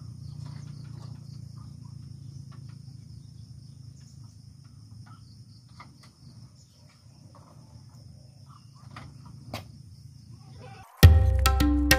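Steady high-pitched insect drone over a low outdoor rumble, with scattered light knocks and one sharper click shortly before the end. About eleven seconds in, background music with a clacking, wood-block-like beat cuts in abruptly and loudly.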